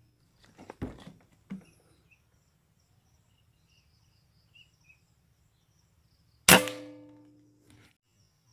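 A few soft knocks and clicks of handling about a second in, then a single sharp air rifle shot about six and a half seconds in, followed by a ringing tone that fades over about a second. Faint high bird chirps sound in the background.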